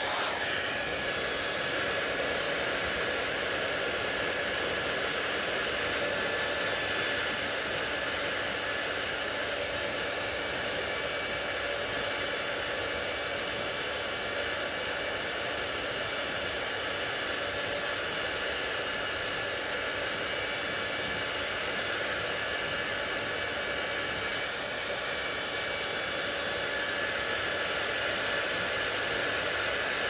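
Handheld hair dryer running steadily close to the microphone: an even rush of blown air with a faint steady whine.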